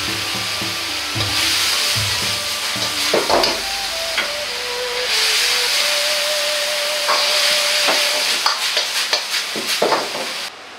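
Sauce sizzling and bubbling in a hot wok while a metal ladle stirs it, clanking and scraping against the wok several times, most often in the last few seconds. The sizzle swells twice and cuts off suddenly just before the end.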